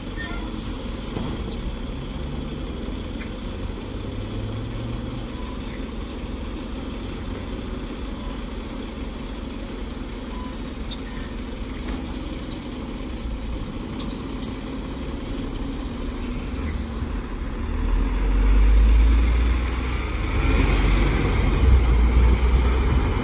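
Double-decker diesel bus idling at a stop, its engine running steadily, then pulling away in the last five seconds with the engine note rising and growing louder.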